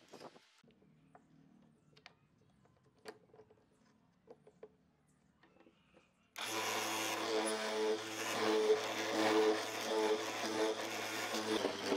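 Faint taps and clicks of hand tools on wood. About six seconds in, an electric hollow-chisel mortiser comes in abruptly, its motor running steadily with a low hum, while the square chisel and auger are plunged into the wooden piece to cut a mortise.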